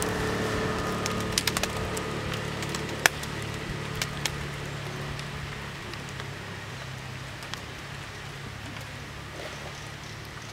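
Several sharp cracks, like dry twigs and leaves snapping, in the first four seconds, the loudest about three seconds in. Under them runs a low steady hum that slowly fades.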